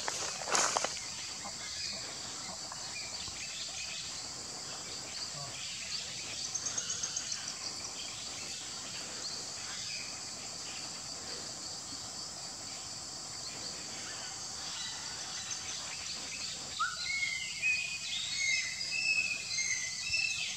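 Steady high-pitched chorus of insects, with a brief rapid trill about six seconds in and a run of bird calls in the last few seconds.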